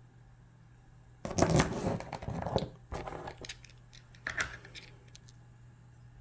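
Handling noise from cut rock pieces being picked up and moved: a rustling burst about a second in with sharp clicks and knocks, then another short burst a little after four seconds.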